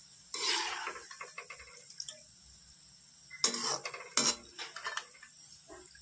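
Perforated metal ladle scraping and clinking against an aluminium kadhai and a wire-mesh strainer as fried onions are scooped out of oil. There are two bursts of scraping, one about half a second in and a louder one after about three and a half seconds, with a few lighter taps near the end.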